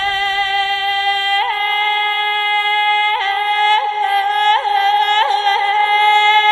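Eerie high sustained note of a horror ghost sound effect, a wailing voice-like tone held steadily, with short upward flicks of pitch about six times.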